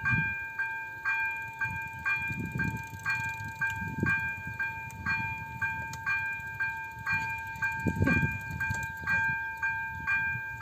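Electronic warning bell of an AŽD 97 level crossing ringing steadily, about two strokes a second, with the barriers down and red lights flashing for an approaching train. Low rumbles swell and fade underneath.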